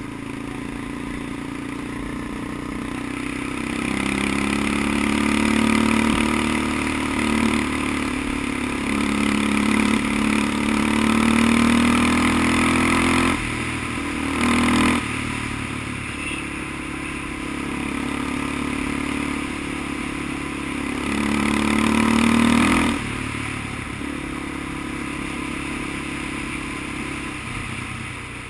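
Small off-road vehicle engine running under way along a dirt trail, its pitch climbing as it speeds up, then dropping sharply as the throttle is let off, about thirteen seconds in and again near twenty-three seconds.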